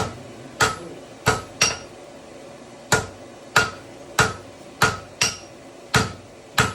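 Hand hammers striking hot steel on an anvil, about eleven blows with a brief pause near the middle, each leaving a short metallic ring: a blacksmith and his striker forging a tomahawk head.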